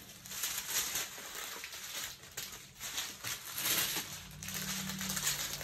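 Small plastic bags of diamond-painting resin drills rustling and crinkling as they are handled, in repeated short bursts.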